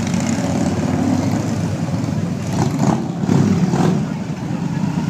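Motorcycle engines running at low speed as a line of bikes rides slowly past, a low rumble that swells about three seconds in.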